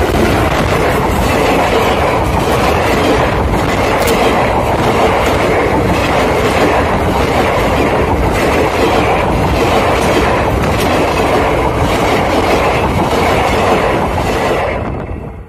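Passenger train coaches rolling over the track directly above: a loud, steady rumble of wheels on rails with repeated wheel clatter. It fades out near the end.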